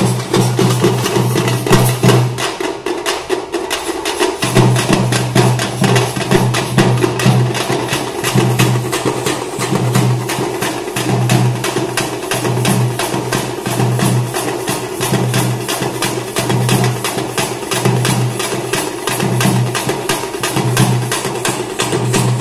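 A Tamil folk drum troupe plays frame drums and a large barrel drum with sticks: a fast, even rattle of strokes over a deep beat about once a second. The deep beat drops out briefly a few seconds in.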